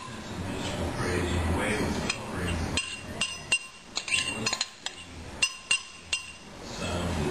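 A kitchen utensil clinking against a sieve and bowl while pushing an olive oil, herb and lemon vinaigrette through the sieve. A quick run of sharp, ringing clinks starts about three seconds in and lasts about three seconds.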